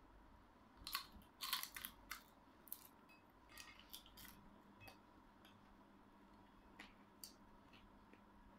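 Faint, scattered crunches and crackles of dried salted fish (tuyo and danggit) being broken apart and eaten, loudest in a cluster about a second in, then sparser, over a faint steady hum.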